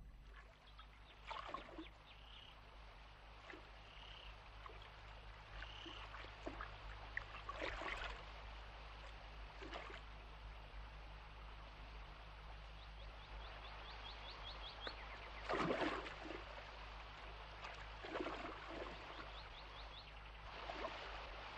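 River water flowing and splashing, with several splashes, the loudest about three quarters of the way through. A few short high bird calls sound in the background, including a quick run of chirps.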